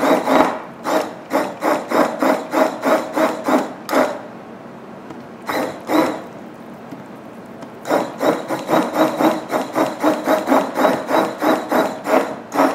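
Immersion blender puréeing cooked tomatillos and chiles into salsa. Its motor runs in rapid pulses, about three a second, as it churns the mixture. It stops for about four seconds in the middle, with one short burst, then starts again.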